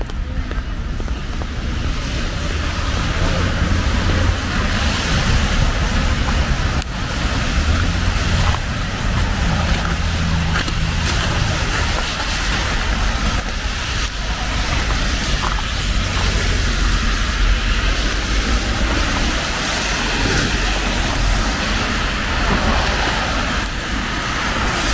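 Steady rain with the constant low rumble and hiss of traffic on wet roads.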